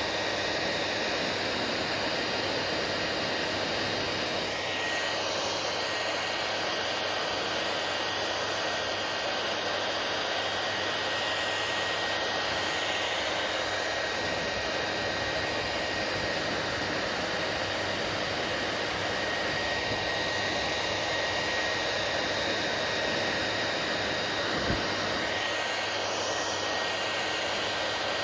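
Hair dryer running steadily: an even rush of blown air with a thin, steady high whine. A small click about 25 seconds in.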